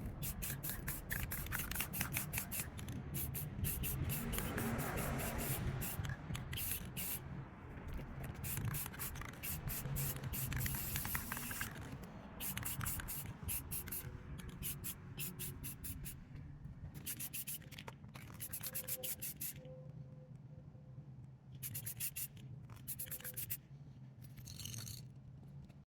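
Aerosol can of matte clear coat spraying in many short bursts of hiss.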